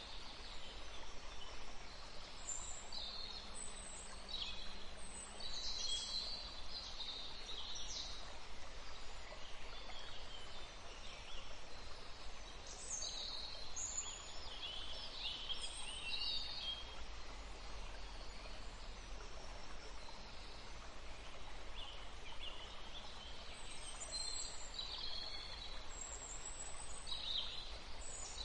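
Birds chirping in woodland: short, scattered high calls from several birds over a soft, steady background hiss.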